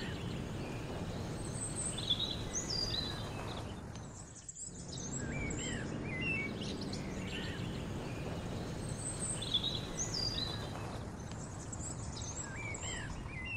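Birds chirping and whistling over a steady low rumble of truck engines driving past. The rumble dips briefly about four and a half seconds in.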